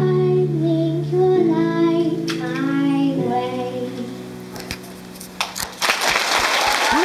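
A young girl singing into a microphone over backing music, her voice stopping about three seconds in while a held chord fades out. Audience clapping starts about five seconds in and grows into applause near the end.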